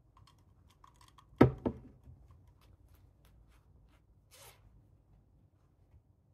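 A glass of iced drink set down on a hard table: one loud knock and a lighter one just after, then faint clicks and a short rustle.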